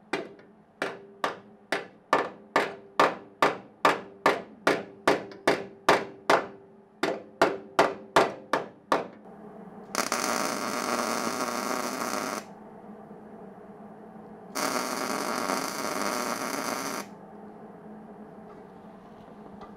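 About twenty quick, evenly spaced blows of metal on metal with a slight ring, roughly two a second, for the first nine seconds. Then a welding arc runs in two bursts of about two and a half seconds each as the brake bracket is welded to the inner fender.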